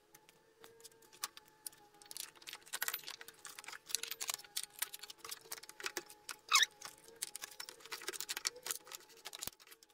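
Irregular clicks, taps and light clattering of hard plastic and metal parts as the Yamaha T-Max 530's belt-drive pinion cover is handled and fitted back over the pinion and toothed belt, with a brief squeak about six and a half seconds in.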